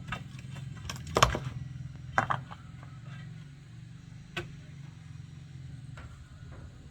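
A few sharp knocks over a steady low hum. The loudest knock comes about a second in, a double knock about two seconds in, and fainter ones later.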